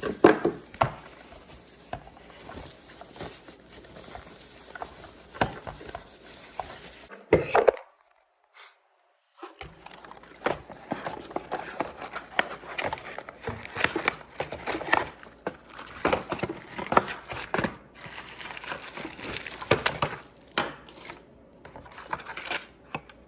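Unpacking and handling of a security camera kit's parts and packaging: scattered clicks and knocks of plastic parts set down and picked up, with crinkling of bags and cardboard. The sound drops out completely for about two seconds roughly a third of the way in.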